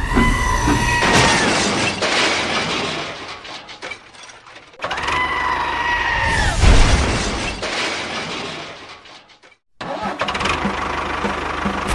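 Engine or motor sound on a toy-scale construction vehicle. Twice, a whine holds briefly and then drops away under a rush of rattling noise that fades. Near the end, a steady running sound with a regular beat sets in.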